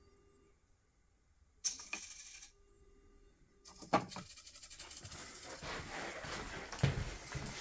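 A small motorised lever fitted to a wall door-intercom handset moves with a short metallic clatter, then a sharp click just before four seconds in. Rustling and footsteps follow near the end.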